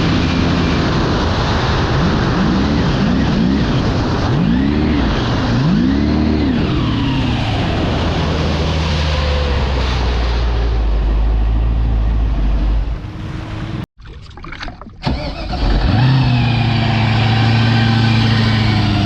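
Jet ski's 4.8-litre LS V8 running under way over the rush of wind and water; the revs rise and fall several times a few seconds in, then hold steady. The sound drops away suddenly for a couple of seconds about two-thirds through, then the engine comes back in, its pitch climbing and holding.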